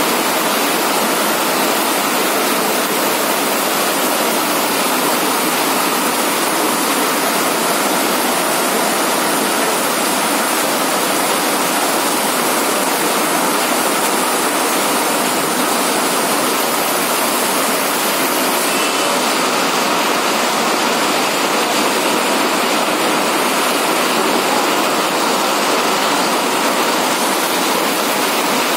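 Heavy rain pouring down in a steady, dense hiss that holds at one level throughout.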